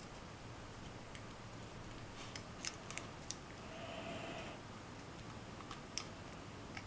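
Small metal clicks and a short scrape as a thin steel shim is worked in around the plug of a brass lock cylinder to free it from the housing. The clicks are faint and sharp, several coming close together a little before the middle, with one more near the end.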